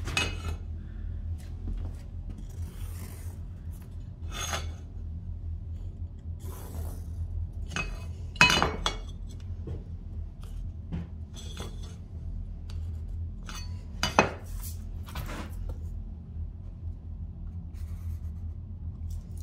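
Vinyl planks and a speed square handled and set down on a plank floor while cut lines are marked with a marker: scattered clacks and taps with light scraping, the two loudest knocks about 8 and 14 seconds in, over a steady low hum.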